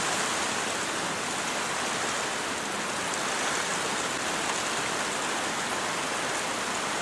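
Heavy rain pouring down steadily, an even dense hiss with no break in intensity.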